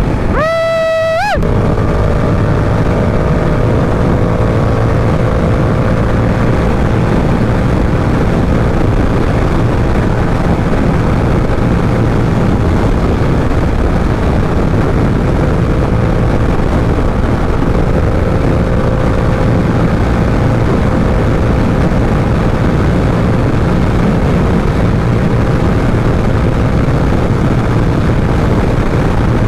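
Yamaha R7's 689 cc parallel-twin engine revving up and breaking off at a gear change about a second in, then holding a steady cruise under constant wind rush on the rider's helmet microphone.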